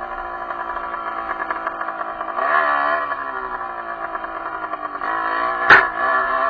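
Derbi enduro motorcycle engine running under way, revving up briefly about two and a half seconds in, then easing back. A sharp knock near the end is the loudest sound.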